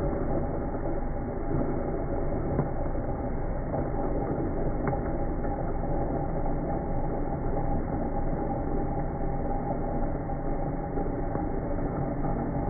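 KitchenAid Magnetic Drive Blender running steadily, its motor hum mixed with the churn of vanilla beans being blended in liquid.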